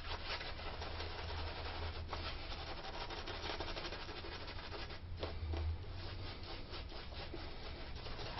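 Shaving brush bristles scrubbing soap lather on a wet face, a steady rapid scratchy swishing of many quick strokes.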